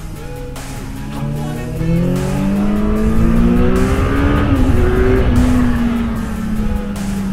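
Kawasaki Z900SE's inline-four engine accelerating, its pitch rising steadily for about four seconds, then holding and easing off a little. Music plays underneath.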